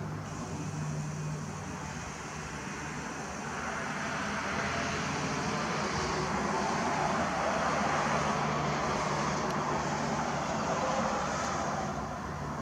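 A passing road vehicle: a rushing noise that swells from about four seconds in, peaks mid-way and fades again, over a low steady hum.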